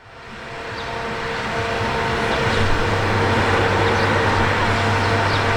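Water-mist fan running steadily: an even rush of air and spray with a low hum and a steadier tone above it, rising in level over the first second or so.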